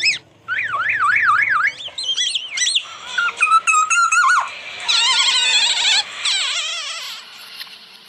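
Black-naped oriole singing fast, repeated up-and-down whistled glides that sound like a siren, mixed with warbling phrases mimicked from white-rumped shama song. The song becomes denser about five seconds in and fades near the end.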